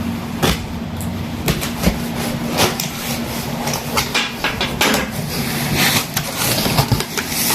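Packaging being handled while unboxing an amplifier: irregular rustles, clicks and knocks over a steady low hum.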